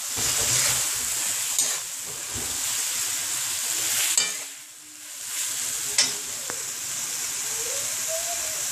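Diced tomatoes and spices sizzling in hot oil in a metal kadai, stirred and scraped with a wooden spatula, with a few sharp knocks of the spatula against the pan. The sizzle drops away briefly about halfway, then carries on steadily.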